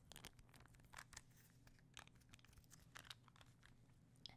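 Quiet, crisp crackling and crunching of a hard taco shell being chewed close to the microphone, in scattered sharp crackles a few times a second.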